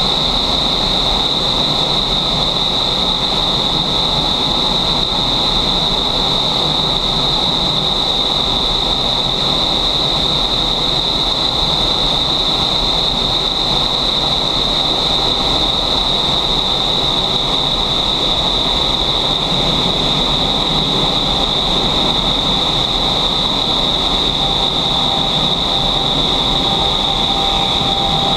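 Steady, loud rush of high-speed air in an iFLY vertical wind tunnel's flight chamber, the airflow blasting past the microphone, with a steady high-pitched whine on top.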